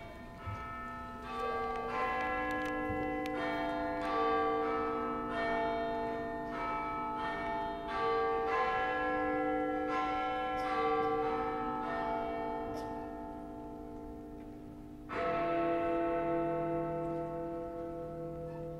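Clock chimes marking eleven o'clock: a slow tune of bell notes, each ringing on under the next, then about fifteen seconds in a single deeper hour stroke, the first of the strikes counting the hour.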